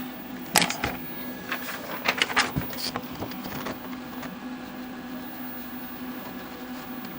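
A few light clicks and taps of handling in the first three seconds, over a steady low hum from the powered-up tube TV chassis.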